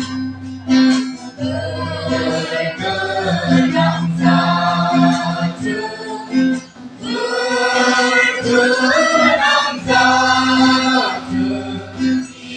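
A group of voices singing together, a choir-like song with a sustained low accompaniment beneath it.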